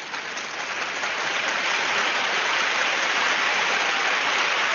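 Crowd applause, starting suddenly and building up over the first couple of seconds to a steady level.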